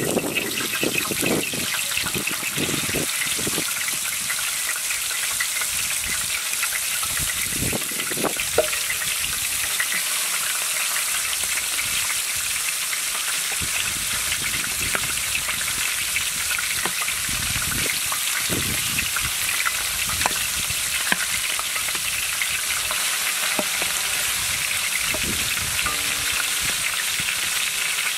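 Whole mutton legs, already cooked in gravy, frying in hot oil in a large metal pot. A steady sizzle runs throughout, with scattered pops and crackles.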